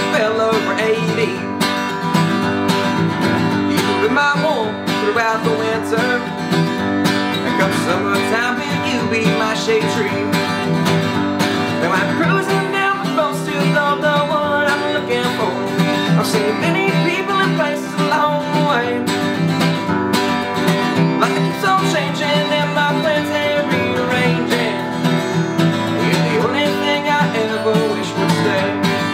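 A man singing a song while strumming a steel-string acoustic guitar in a steady rhythm.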